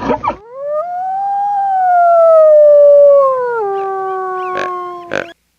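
A single long canine howl, rising at first and then sinking slowly in pitch for about five seconds, with short sharp yips near the end.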